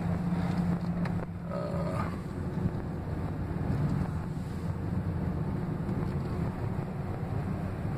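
Tow truck's engine running and road noise as it drives slowly, heard from inside the cab: a steady, low-pitched noise.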